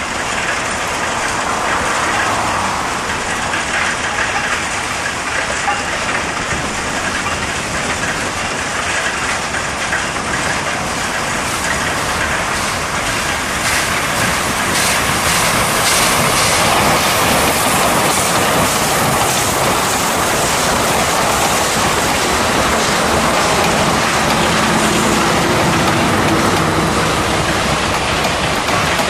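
Two steam locomotives, a C11 dressed as Thomas and a C56 dressed as James, double-heading a passenger train past: steady steam exhaust and hiss that grow louder as the engines pass, then the coaches rolling over the rails.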